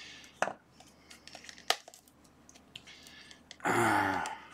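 Hobby knife cutting and picking at the plastic shrink wrap of a cardboard retail box, with crinkling plastic and scattered sharp clicks and ticks. Near the end comes a louder pitched sound about half a second long.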